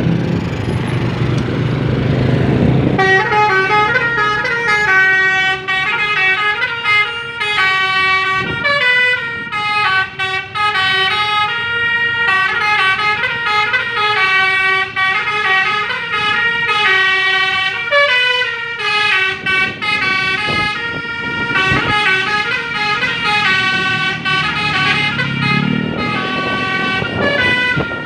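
Basuri 'telolet' multi-tone bus horn playing quick melodic tunes, its notes stepping up and down, starting about three seconds in after a low rumble.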